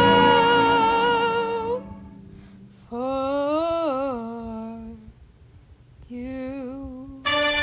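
A singer holds a note over backing music, which stops about two seconds in. Two short unaccompanied vocal phrases with vibrato follow, and the backing music comes back in near the end.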